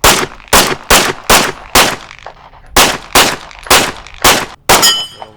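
Semi-automatic pistol fired in rapid strings of shots, ten in all: five about every 0.4 s, a pause of about a second, then five more. A brief metallic ring follows the last shot.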